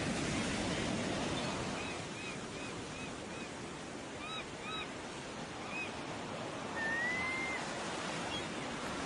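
Steady rush of sea surf with short high chirps over it: a quick run of about six in the first few seconds, a few more in pairs, then one longer rising whistle a little past the middle.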